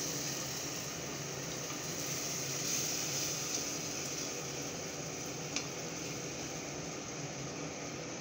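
Chickpea masala sizzling steadily in a pot as water is added and stirred in with a wooden spatula, with one short click about five and a half seconds in.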